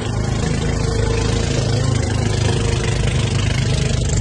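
Outrigger boat's inboard engine running steadily as the boat cruises, a constant low hum with some wind and water noise over it.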